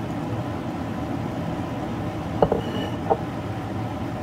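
Steady rumbling noise, with a ceramic plate knocking down onto a wooden cutting board about two and a half seconds in, and a lighter knock about half a second later.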